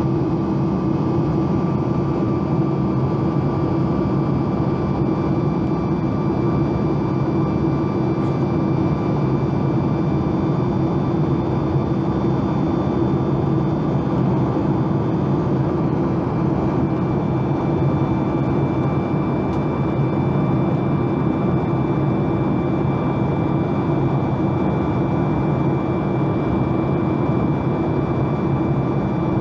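Steady in-flight cabin drone of a Boeing 737 MAX 8 heard from a window seat by the wing: the hum of its CFM LEAP-1B turbofan engines and rushing air, with a thin steady whine over it.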